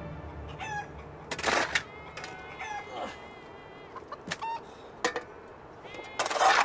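Chickens clucking: a series of short pitched calls, with two louder harsh bursts about a second and a half in and again near the end.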